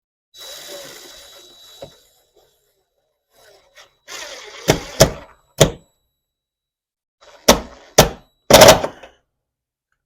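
Six sharp, loud knocks and thunks in two groups of three, the last one the longest and loudest, with short bursts of scraping or whirring noise between them. These are tool work on the layout's wooden framework.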